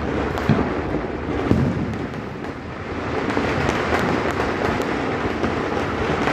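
Smouldering remains of a sky-shot firework shell giving a couple of small pops about half a second and a second and a half in, over a steady rushing noise.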